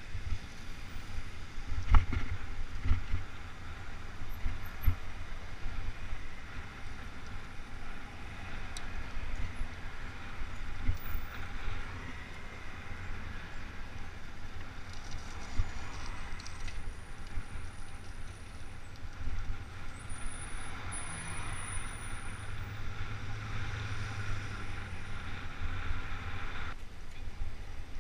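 Wind buffeting the microphone of a camera on a moving bicycle, a steady low rumble with riding noise, and a sharp knock about two seconds in.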